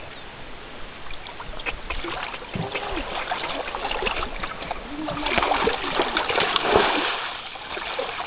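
Shallow seawater splashing as a large ray is hauled and handled through it by hand, the splashing loudest about five to seven seconds in.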